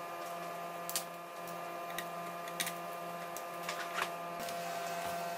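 Three sharp clicks, about a second and a half apart, from a plastic laptop case being handled and pressed by hand, over a steady background hum.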